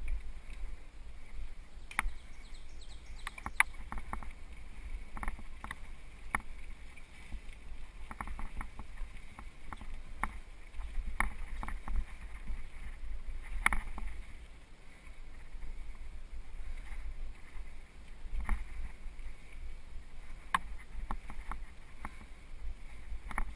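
Mountain bike riding over a rough dirt singletrack, heard up close from the rider's own bike: a steady low rumble of wind and tyres with frequent sharp clicks and rattles as the bike jolts over bumps and roots.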